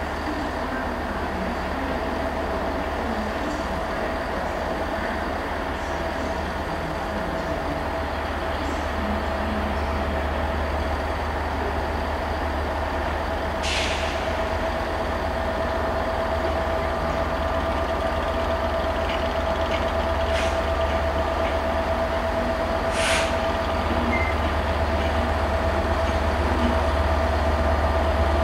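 Class 67 diesel locomotive running as it draws slowly closer at the head of a passenger train, a low rumble with a steady whine, slowly getting louder. Three brief sharp sounds stand out, about halfway through and again twice near the end.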